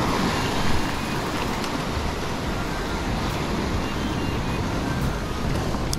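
Steady rush of ocean surf breaking and washing over the rocks below, with wind rumbling on the microphone.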